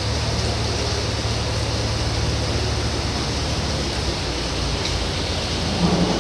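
Steady rain noise with a low rumble underneath, and a short pitched sound near the end.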